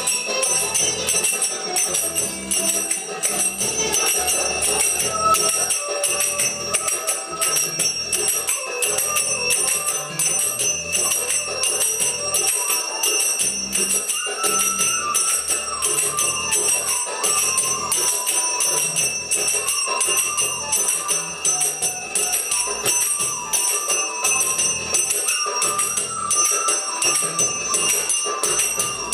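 Zills (belly-dance finger cymbals) struck in a steady, repeating Longa pattern, each strike ringing, over background music with a melody.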